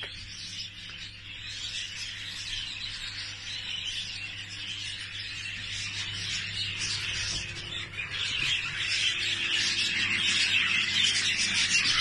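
Many budgerigars chattering and chirping together, growing louder toward the end, over a steady low hum.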